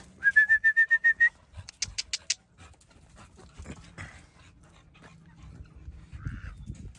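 American Bully dog whimpering in a quick run of about nine short, high yips, then panting. A few sharp clicks come about two seconds in.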